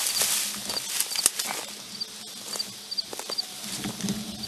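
Wind buffeting the microphone in gusts, strongest at first, with one sharp click a little over a second in and a faint high chirp repeating about twice a second.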